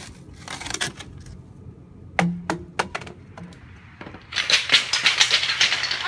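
Hard objects knocking and clattering as they are handled: a few separate sharp knocks, one with a short hollow ring, then a rapid run of clattering clicks in the last two seconds.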